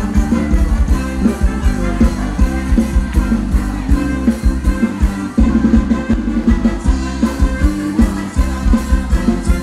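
Thai ramwong dance music from a live band, with a steady drum beat.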